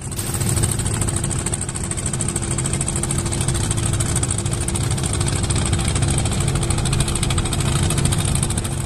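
Small boat's engine running steadily at an even speed, with a fast, regular beat.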